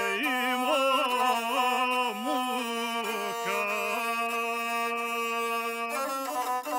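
A guslar's performance of a Serbian epic song between sung lines: one nasal, ornamented melodic line from the bowed single-string gusle and the singer's voice. It wavers and turns in pitch for the first few seconds, then holds a steady note, and changes again near the end.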